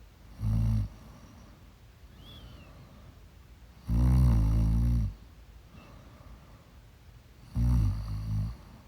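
A person snoring in sleep: three loud snores. A short one comes about half a second in, a longer one of about a second comes in the middle, and the third comes near the end.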